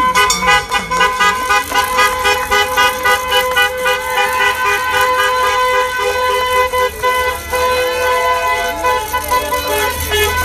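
Car horns honking without a break: held tones overlapping, with quick repeated toots pulsing over them.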